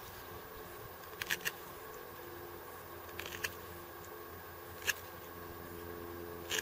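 A few short, soft clicks and rustles from hands handling a bow drill's wooden spindle and cord: three quick clicks about a second in, a small cluster around the middle, and single clicks later, over a faint steady hum.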